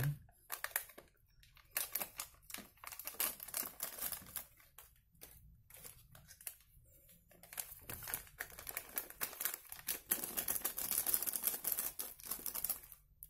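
Plastic Milo sachets crinkling as they are shaken and squeezed to empty the powder, in short bursts and then a denser stretch of crackling near the end.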